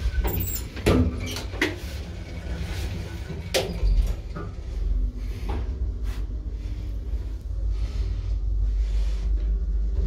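1960s Del Bo P.Stam traction elevator: a series of sharp clunks and clicks from its doors and mechanism in the first few seconds, over a steady low rumble of the lift machinery that carries on throughout.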